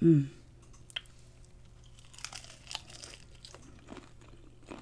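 Close-miked biting and chewing of a sauce-dipped, deep-fried battered shrimp: scattered soft crunches and wet mouth clicks, spread out over a few seconds. It opens with a short vocal sound that falls in pitch, the loudest moment.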